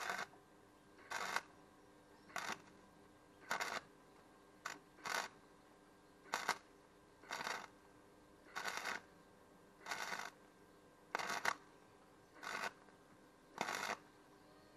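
MIG welding arc crackling in short bursts, a little over one a second, as a trampoline's metal frame tube is stitch-welded in a series of brief welds. A faint steady hum runs between the bursts.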